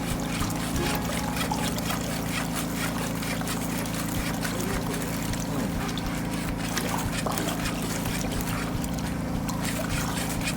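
Engine-driven high-pressure drain-jetting machine running at a steady drone, with water hissing and crackling over it.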